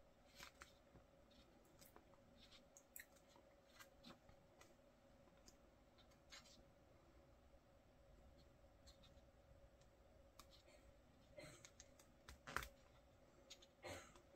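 Faint page turns in a glossy photobook: short paper flicks and rustles scattered throughout, with two louder flicks near the end, over a faint steady hum.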